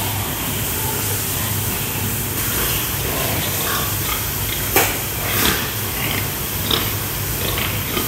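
Sows in metal crates grunting over a steady background hiss and low hum. A sharp knock comes about five seconds in, followed by a few lighter knocks.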